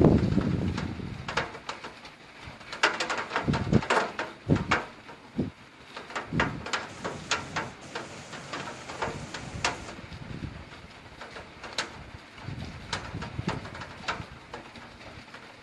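A thunder rumble dies away in the first second or two. After it come irregular, sharp taps of heavy raindrops striking a hard surface close by.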